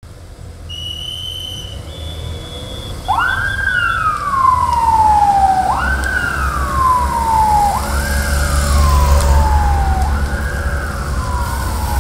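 Race escort vehicle's siren sounding in a repeating cycle from about three seconds in: each cycle jumps up fast, then falls slowly, repeating about every two seconds. Under it is the low rumble of motorcycle engines pulling away at low speed. Before the siren starts, a steady high tone sounds for a couple of seconds.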